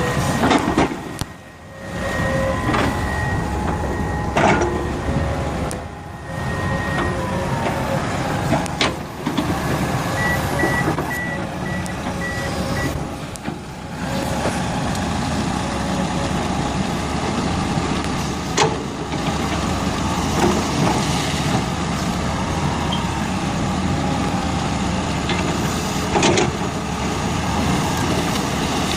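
Heavy machinery engines running, in several short clips joined by abrupt cuts, with a back-up alarm beeping rapidly about a third of the way through.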